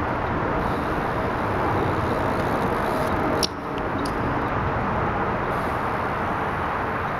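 Steady outdoor background noise with a low rumble, like traffic or wind. About three and a half seconds in there is one sharp click, and the noise briefly dips.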